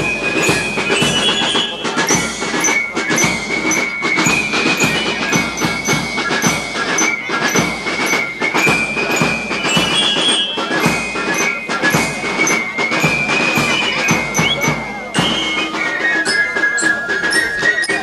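Music: a melody of held high notes that step up and down in pitch, over a busy, rapid percussion beat.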